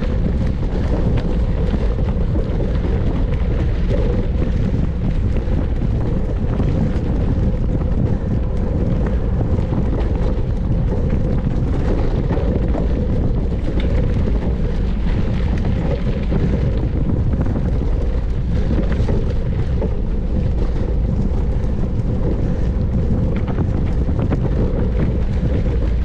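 Steady rush of wind on the microphone with tyre and frame rattle from a mountain bike ridden at race speed.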